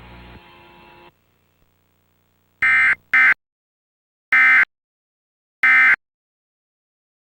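Emergency Alert System end-of-message (EOM) data bursts: short, buzzy digital tones repeated three times about a second and a half apart, the first broken by a brief dropout. They mark the end of the alert. A faint hiss cuts off about a second before the bursts begin.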